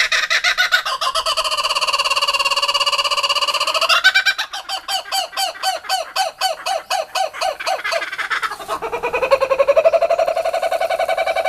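Laughing kookaburra calling its laugh: a loud, harsh, held call, then a run of quick repeated chuckling notes at about four or five a second, then, near the end, a call that rises and holds.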